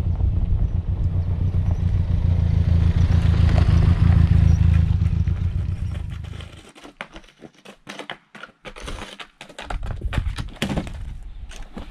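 A motor vehicle engine rumbling low and steady, which stops about two-thirds of the way in. Scattered crunches, clicks and scrapes follow.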